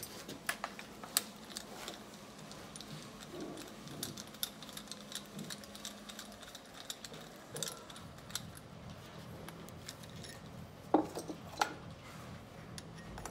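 Scattered clicks and light metallic rattles of a compression tester being unscrewed and handled on a diesel engine, its hose and brass fitting knocking against the engine, with a few louder knocks about eleven seconds in.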